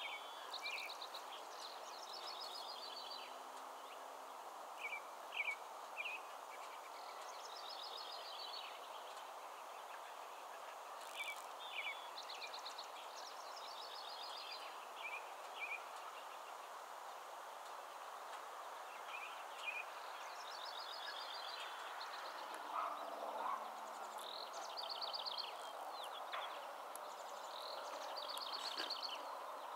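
A songbird repeats a short phrase of quick high notes every few seconds over a steady outdoor background hiss.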